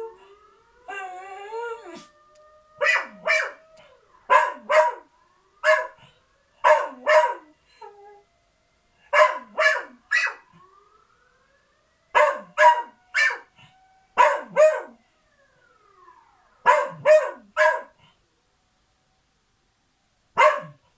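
Dog howling along with an emergency siren: a short wavering howl, then a run of short barks in groups of two or three, with a last single bark near the end. The siren is faint underneath, slowly rising and then falling in pitch.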